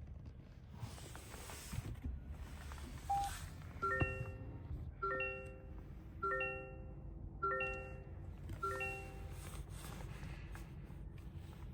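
Car's in-cabin warning chime: one short beep, then a bright multi-note chime repeated five times about a second apart, over a low steady cabin hum.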